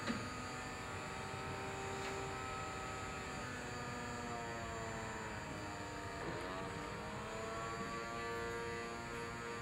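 Mind Flex toy's small electric fan running with a steady whine as it holds the foam ball aloft on its air jet. About six seconds in the pitch dips and climbs back as the fan slows and speeds up with the headset's reading. A brief click at the very start.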